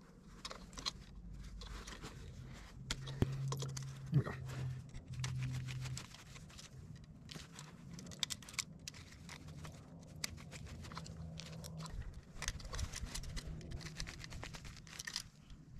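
Light clicks, ticks and scrapes of hand-wiring an electrical receptacle: copper wire ends being bent with lineman's pliers and the receptacle's terminal screws turned with a screwdriver. A faint low hum comes and goes behind it.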